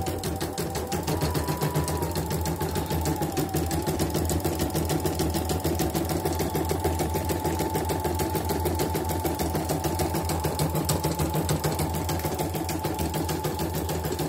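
CNY portable computerized embroidery machine stitching a design: a rapid, even needle rattle over a steady motor whine that rises briefly in pitch about a second in. It is a test run after repair, and the machine runs normally.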